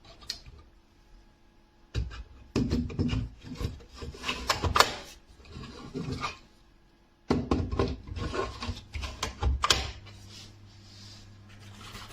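Two bouts of scraping and rubbing with scattered clicks, each a few seconds long, separated by a short quiet gap; a faint steady hum follows for the last couple of seconds.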